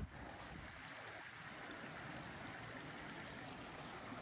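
Faint, steady rushing of a river flowing.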